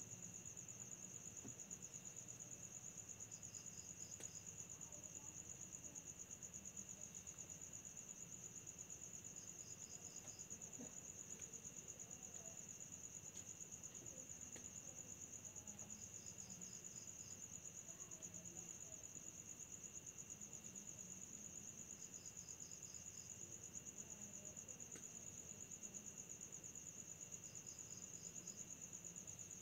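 Faint night insect chorus of crickets: one cricket trills steadily at a high pitch, while a second gives short chirps of four or five pulses about every six seconds.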